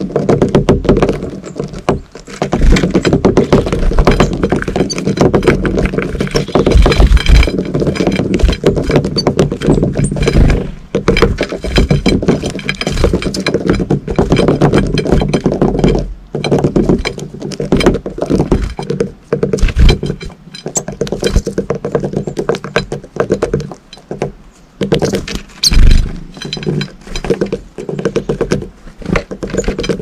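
Great tits and blue tits pecking at fat balls and landing on a ceramic plate close to the microphone: a dense, irregular run of quick taps and thuds.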